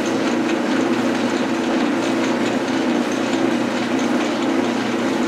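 Metal lathe running steadily, its motor and gearing giving a constant hum with a rattling mechanical noise over it.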